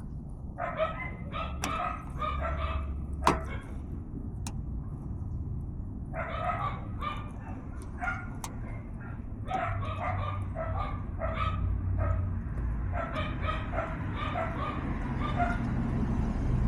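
A dog barking in repeated runs of quick barks, with a few sharp clicks, the loudest about three seconds in, over a steady low rumble.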